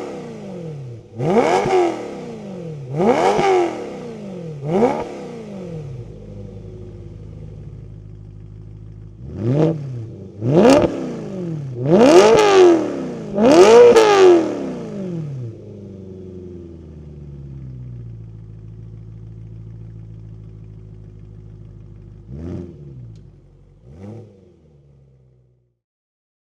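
BMW E92 M3's 4.0-litre V8 free-revving at a standstill: a run of quick throttle blips, each rising sharply and falling back to a steady idle. There are three near the start, then four louder, longer ones in quick succession, and two small blips near the end before the sound stops.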